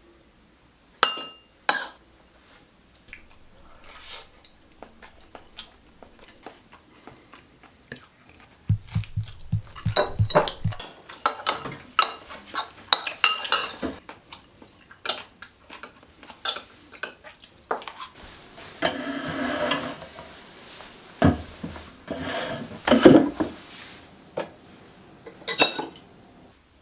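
Metal cutlery clinking and scraping against bowls and dishes during a meal: scattered sharp clinks, a few ringing like struck metal or china, with a longer scrape partway through.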